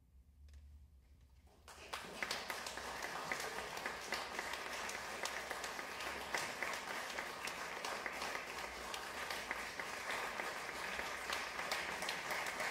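Audience applauding: a brief hush, then steady clapping starting about two seconds in.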